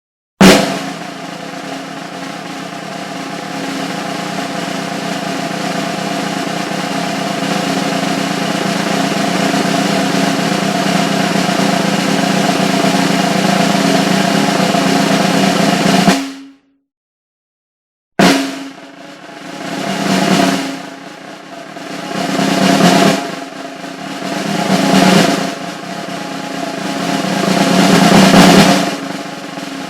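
Snare drum roll announcing a show: after an opening hit it builds slowly in loudness for about sixteen seconds and stops abruptly. After a short silence a second roll starts with a hit and swells and fades in several waves.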